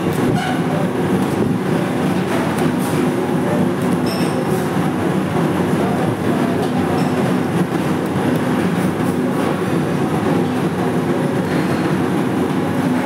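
Steady, loud mechanical drone with a constant low hum, from machinery running in a commercial kitchen.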